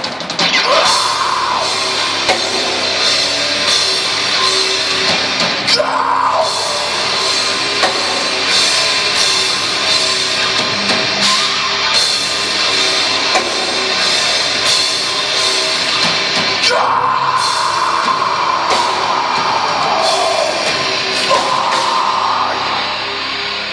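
Live heavy metal band playing loud, with a drum kit and voice mixed in.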